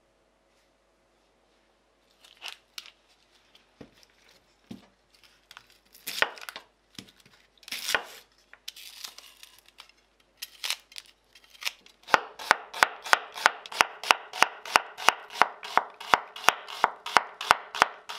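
Onions being trimmed with a knife and their dry skins pulled off, with scattered rustles, tearing and knife taps on a bamboo cutting board. From about twelve seconds in, a knife chops onion on the board in a fast, even rhythm of about five strokes a second.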